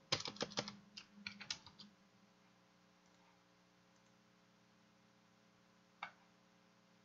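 Computer keyboard keystrokes, a quick run of about a dozen taps over the first two seconds, then a single click about six seconds in.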